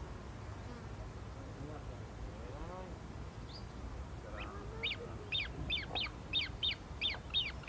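A bird calling a rapid series of sharp notes, each falling in pitch, about three a second, starting about five seconds in, over a low steady background rumble.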